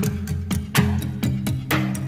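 Background music with a steady fast beat, about four strokes a second, over sustained bass notes.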